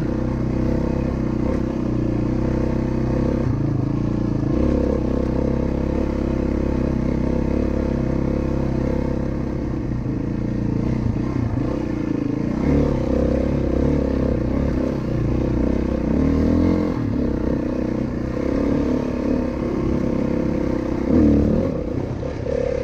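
Single-cylinder four-stroke dirt bike engine running as the bike is ridden, its note rising and falling with the throttle, loudest briefly near the end.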